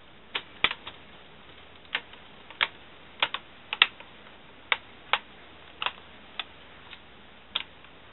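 Plastic snap clips of a Toshiba Satellite L655D laptop's screen bezel clicking into place as the frame is pressed firmly along its edge: about fifteen sharp clicks at uneven intervals.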